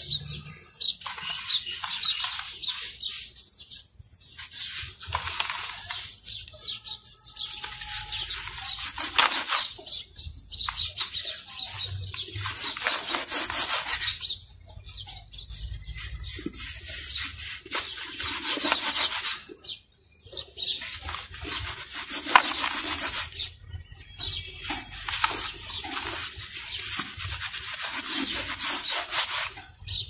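Bare hands crushing dry, dusty charcoal cup-shaped blocks and rubbing the powder between the fingers in a plastic tub: a gritty crunching and rasping, broken by short pauses every few seconds.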